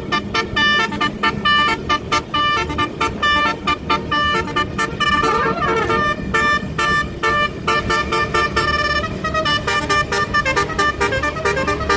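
Bus telolet horns (Basuri multi-tone air horns) playing rapid, stuttering tunes of several pitched notes. A pair of sweeping tones, one rising and one falling, cross about five seconds in.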